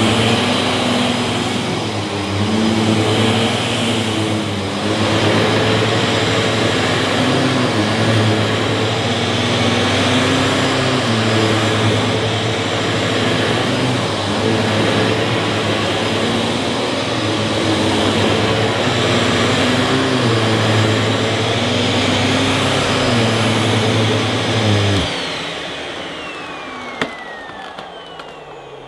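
Miele S7 upright vacuum cleaner running on carpet, its motor pitch rising and falling over and over as it is pushed and pulled. About 25 seconds in it is switched off and the motor winds down with a falling whine, with a single click near the end.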